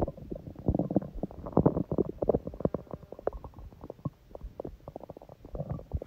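Empty human stomach growling from hunger: a run of quick, irregular gurgles and pops, busiest in the first couple of seconds and again near the end.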